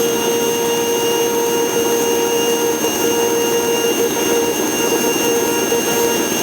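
Steady drone of a Cessna 150's piston engine and propeller in cruise, heard inside the cabin, with a few fixed whining tones over a rushing noise.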